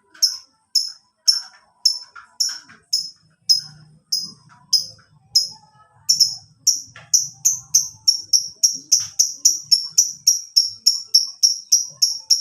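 Lovebird giving a series of sharp, high chirps, about two a second at first, quickening to three or four a second about halfway through.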